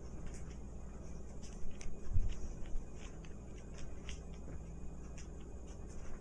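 Scattered light clicks and taps from kittens moving about at a plastic pet door on a tile floor, with one dull thump about two seconds in.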